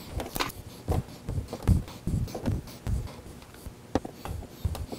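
Plastic body panel of a Can-Am Spyder F3 being pried and handled with a small pry tool: irregular clicks and soft knocks, several a second.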